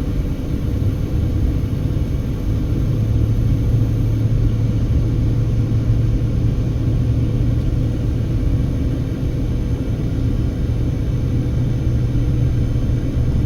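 Car driving uphill on a mountain road: a steady low rumble of engine and tyre noise, with an engine drone that grows stronger about three seconds in.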